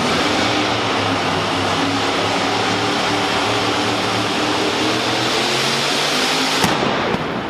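Modified pulling tractor's engine running at full power under load during a pull. A single sharp bang comes near the end, after which the sound drops off; the announcer then calls the run a 171.25 with an explosion.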